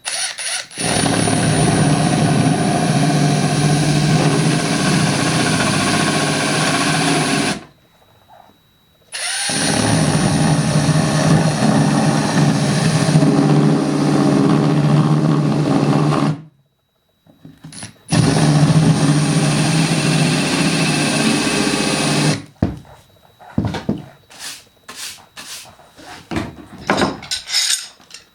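Power drill running a nail head trimmer bit, cutting away the wood around a nail head sunk below the surface. It runs in three steady stretches of several seconds each. Near the end come scattered short knocks and scraping.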